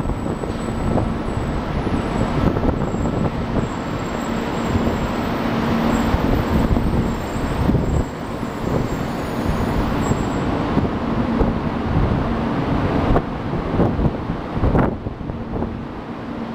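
JR Kyushu 800 series Shinkansen train moving along the station platform: a steady rumble and rush of wheels and air, with a low hum throughout.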